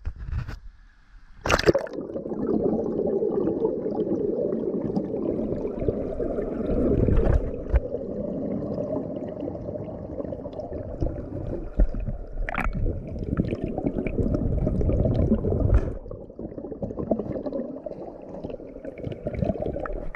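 Water sloshing and gurgling close to the microphone, a churning, muffled sound with a few sharp knocks.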